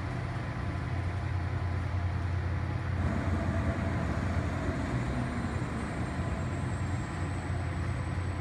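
Steady low mechanical rumble with a deep hum, growing a little louder about three seconds in, with a faint high whine in the second half.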